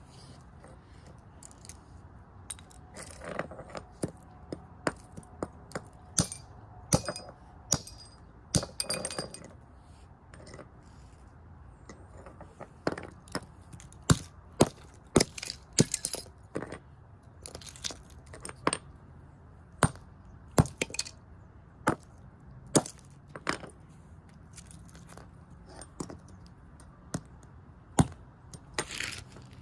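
Hammer blows smashing a Sylvania alarm clock radio: many sharp strikes at uneven intervals, with its casing and parts cracking and breaking.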